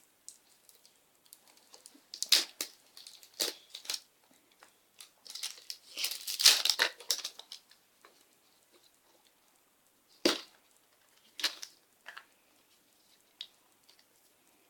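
A surprise egg's wrapping being torn open and crinkled in irregular bursts, with a few sharp clicks later on.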